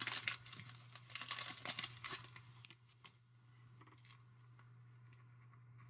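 The waxed-paper wrapper of a 1987 Topps wax pack being torn open and crinkled for about the first two seconds, then only a faint steady low hum.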